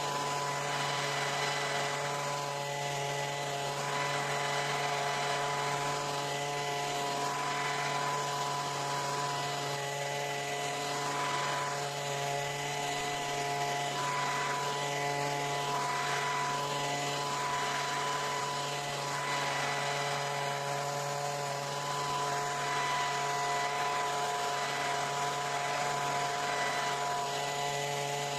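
Leaf blower running at a steady high speed, its engine holding one constant note while the rush of air swells and fades every couple of seconds.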